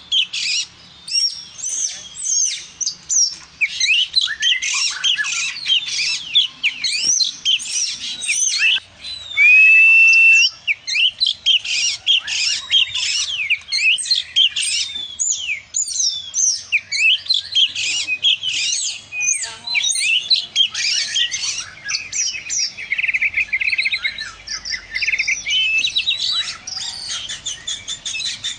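Oriental magpie-robin singing a long, fast, varied song of whistles and chirps, with a loud held whistle about ten seconds in and a buzzy, rattling passage near the end.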